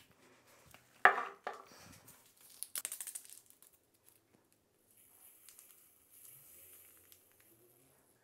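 A sharp knock about a second in, then a paper sugar stick torn open with a quick crackle, followed by a faint hiss of granulated sugar trickling into a plastic funnel.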